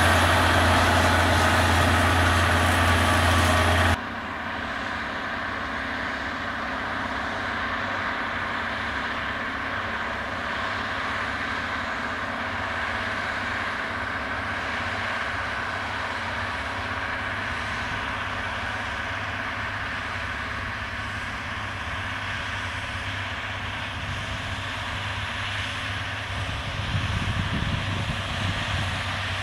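John Deere tracked tractor's diesel engine running steadily under load while pulling a disc harrow. About four seconds in, the sound drops abruptly to a quieter, steady engine drone, and a low rumble grows near the end.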